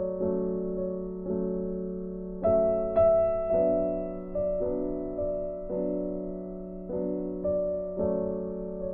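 Slow, soft piano background music: notes and chords struck about once a second, each fading away before the next.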